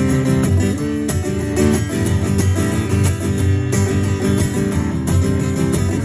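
Acoustic guitar strummed in a steady rhythm with no singing: an instrumental break between the chorus and the next verse of a song.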